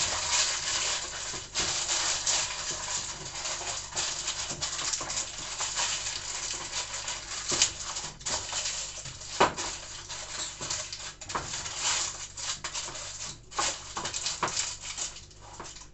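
Electric mixer running and mixing bread dough, a steady motor hum under busy rattling, knocking and scraping of the dough in the bowl; it stops right at the end.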